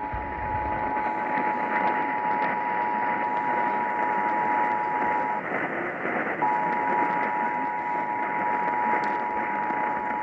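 Emergency Alert System attention signal, the two-tone 853 and 960 Hz alert tone, sounding steadily over a radio with heavy static hiss. The tone drops out for about a second a little past the middle, then resumes.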